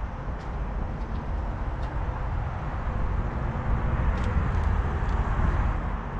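Steady low rumble of an idling engine with a faint steady hum, growing a little louder about two-thirds of the way through, with a few light clicks.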